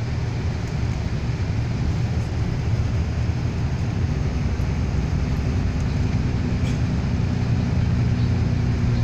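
Steady engine drone and road noise heard inside a moving road vehicle. A slightly higher steady tone joins the drone about halfway through.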